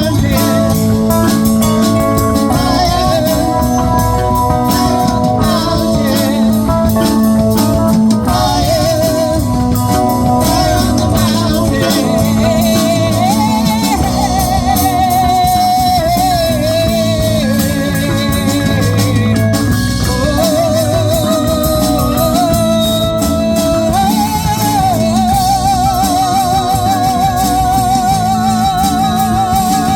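Live classic rock band playing: guitar, bass and drum kit under a sustained lead melody that wavers with vibrato.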